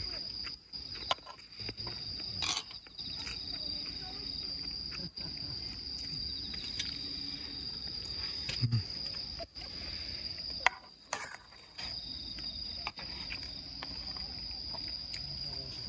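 Crickets trilling steadily in a high pitch, with a few sharp clicks and taps of chopsticks against metal camp cookware, the loudest about ten seconds in.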